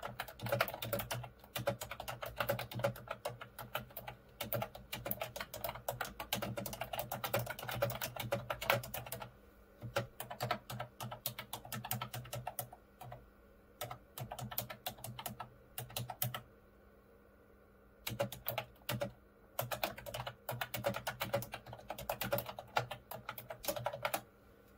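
Typing on a Mofii Sweet wireless keyboard with round typewriter-style keys: a quick, dense run of key clicks that stops briefly a few times, with the longest pause from about sixteen and a half to eighteen seconds in.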